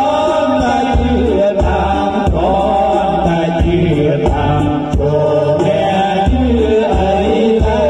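Music with a singing voice over a strong, repeating bass beat.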